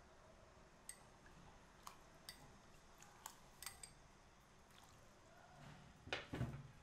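Faint, sparse clicks of a metal spoon against a small ceramic bowl as fish sauce is spooned out and poured into a pot of soup stock, with a few louder knocks of kitchenware about six seconds in.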